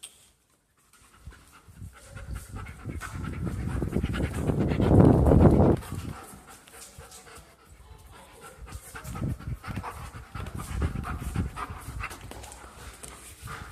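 German shepherd dog panting heavily and close by, loudest about four to six seconds in.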